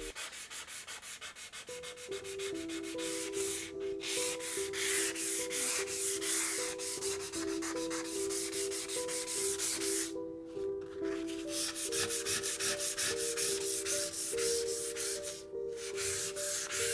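220-grit sandpaper rubbed by hand in quick back-and-forth strokes along the steel blade of an old skew-back hand saw, scouring off surface rust. The strokes break off briefly a few times. Soft background music plays underneath.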